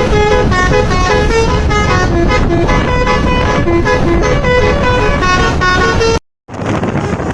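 Basuri telolet multi-tone bus horn playing a quick melody of short stepping notes over a steady low rumble. It cuts off abruptly about six seconds in, and after a brief silence there is rumbling noise with wind on the microphone.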